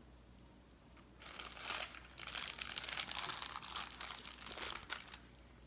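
Plastic snack wrapper crinkling as it is handled, a dense crackle that starts about a second in and stops shortly before the end.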